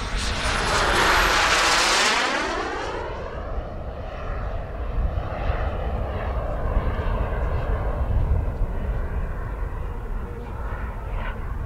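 Small gas turbine of a CARF Models Mephisto RC jet passing close by: a rush of jet noise with a high whine rising in pitch, loudest about one to two seconds in. It then settles to a steadier, fainter turbine hiss as the jet moves away.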